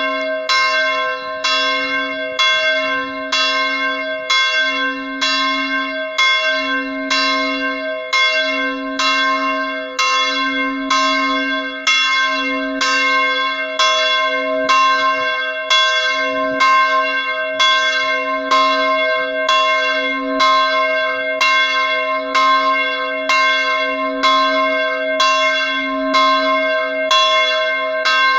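Church bells ringing for Mass: a large bronze bell and smaller bells swinging and striking in a steady, regular rhythm, their tones overlapping into a continuous ring with a pulsing low hum underneath.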